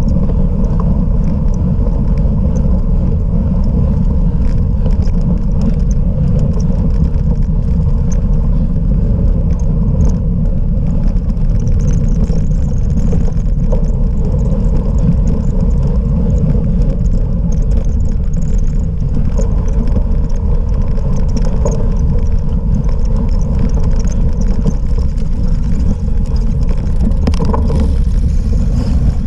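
Steady loud rumble of a cyclocross bike being ridden over rough off-road ground, with wind buffeting the microphone and small scattered rattles and knocks.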